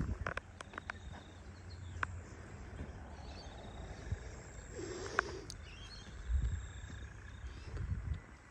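Rainforest ambience: scattered short bird calls and chirps over a low rumble of wind and handling on the microphone, with a faint steady high tone in the background.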